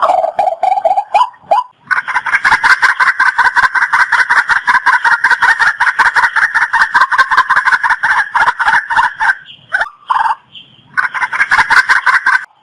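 Waterhen calling: a long run of fast, harsh, rapidly repeated notes, a short break, then another run.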